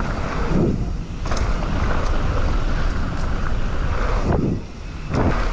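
Mountain bike ridden along a dirt trail: a steady rush of wind on the microphone mixed with tyre and trail noise, easing briefly near the end.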